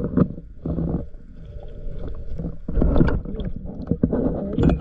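Muffled underwater rumbling and bubbling, heard through the housing of a submerged action camera, with irregular bumps and thuds, the loudest about three seconds in and near the end.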